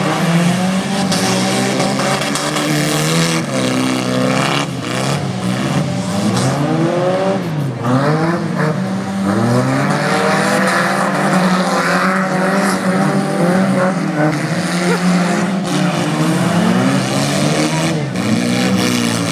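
Several race car engines revving up and down as they accelerate and slow around the track, their pitches rising and falling and overlapping.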